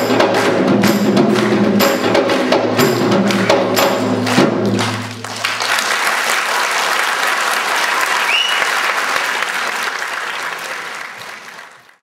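Song accompaniment with drums and percussion ends on a last beat about five seconds in. The audience then applauds, and the applause fades out near the end.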